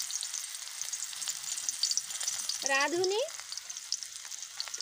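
Chopped onion frying in hot oil in a wide metal kadai: a steady sizzle with fine crackling.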